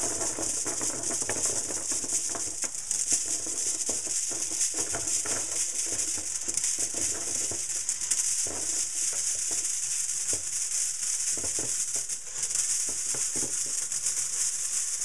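A continuous pour of US one-cent coins (pennies) cascading onto a growing heap of coins: a dense, steady clinking and jingling of many small metal coins striking each other.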